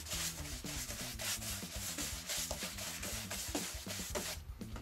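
Flat bristle paintbrush scrubbing latex paint onto a rigid foam insulation board: quick back-and-forth brush strokes that stop about four seconds in.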